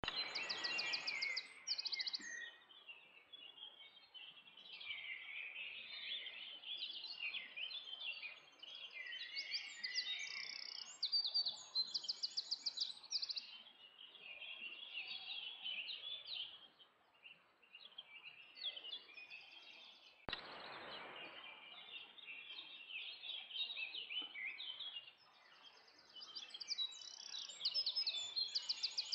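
Several songbirds singing at once in an overlapping chorus of chirps and whistles, with rapid high trills that come back now and then. A single sharp click about twenty seconds in.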